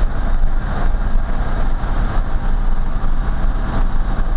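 Steady road and engine noise inside a truck's cab at highway speed: a low rumble with tyre and wind hiss over it.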